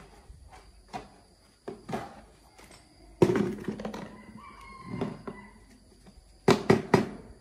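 Irregular sharp knocks of wood being struck, a second or more apart, ending in three quick hard strikes near the end. A chicken calls briefly in the background about midway.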